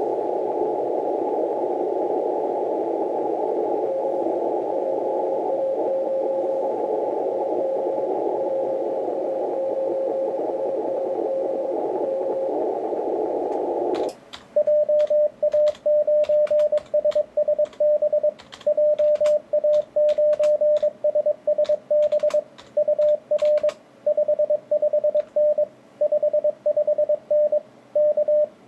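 FLEX-5000 transceiver in CW mode on the 6-metre band. First comes steady band hiss through a narrow CW filter, with a weak Morse signal from a distant station barely above it. About halfway through, the hiss cuts out as the rig goes to transmit, and a loud, clean Morse sidetone keys out the reply, a signal report ending in K, until the receiver hiss returns near the end.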